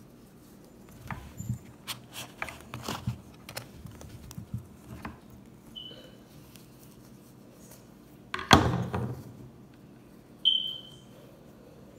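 Hands handling small plastic toy pieces and crumbling moldable play sand, with scattered soft clicks and rustles and one louder thump-like rustle about eight and a half seconds in. Two short high-pitched beeps sound, one about six seconds in and a louder one about ten and a half seconds in.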